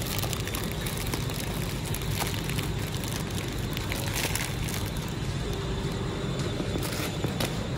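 Plastic biscuit wrappers crinkling and crackling as packets are pulled from a shelf and handled, loudest about four seconds in, over a steady low rumble.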